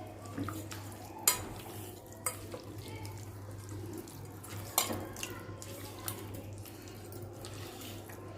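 Chicken leg pieces being mixed into a thick yogurt and spice marinade in a bowl: soft wet stirring, with a few sharp clicks against the bowl.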